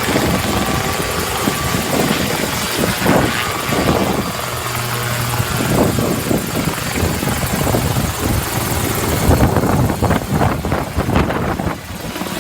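Helicopter rotor and engine noise, loud and continuous. About nine seconds in the hiss falls away and a rapid beating takes over.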